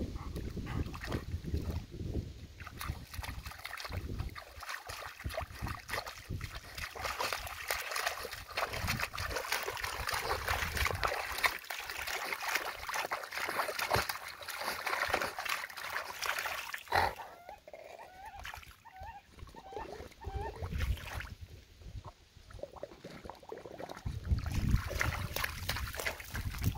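Golden retriever pawing and digging in a shallow muddy puddle, its paws churning the water in a steady run of splashes and sloshes. The splashing eases off about two-thirds of the way through, and near the end splashing steps come as the dog wades through the water.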